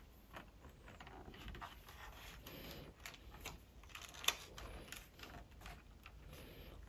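Faint clicking and rubbing of plastic building bricks being pressed together as a section is fitted onto a brick-built model car, with one sharper click about four seconds in.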